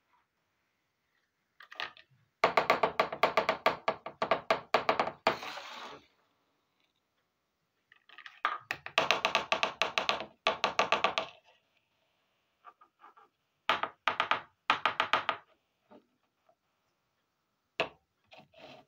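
Small plastic toy kitchen pieces being handled and set down: several bursts of rapid clicking and clattering, each a second or few long, separated by quiet pauses.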